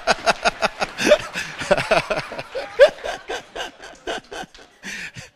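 A man laughing hard into a handheld microphone: a rapid run of short bursts of laughter that grows quieter near the end.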